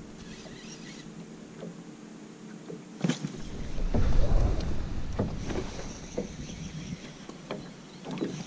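Handling knocks and rumble in a small metal boat as an angler strikes and plays a hooked zander on a spinning rod. A sharp knock comes about three seconds in, followed by a louder spell of low rumble and scattered knocks.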